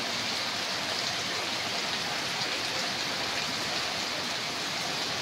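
Heavy monsoon downpour: rain pouring steadily onto a road and roofs in an even, unbroken hiss.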